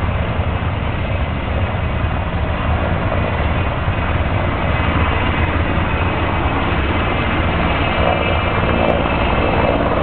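Sikorsky S-64 Skycrane firefighting helicopter running loud and steady as it hovers low to refill, its rotor beat and turbine whine constant; it grows a little louder near the end as it lifts off and climbs away.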